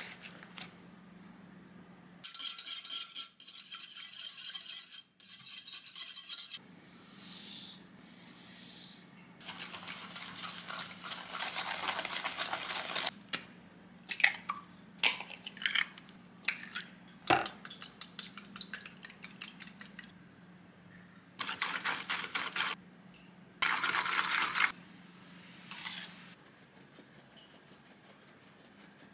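A run of kitchen handling sounds during baking prep, in separate short stretches: a foil butter wrapper crinkling, eggs cracked into a glass cup, clinks and knocks of steel and glass bowls and utensils, and flour shaken through a mesh sieve.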